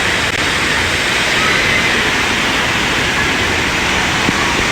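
Steady loud rush of flowing water, an even hiss and roar without break.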